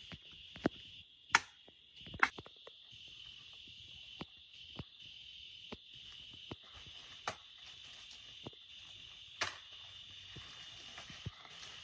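A steady, high forest insect chorus, with scattered sharp snaps and clicks of twigs and brush being handled and broken. The loudest snaps come about a second and a half and two seconds in, and again about nine and a half seconds in.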